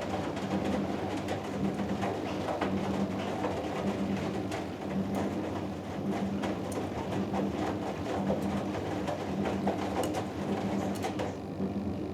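Hoover Dynamic Next DXA610IW3 washing machine tumbling a load in the wash phase of a cotton cycle. A low motor hum comes and goes as the drum turns, with water sloshing and small knocks from the laundry in the drum.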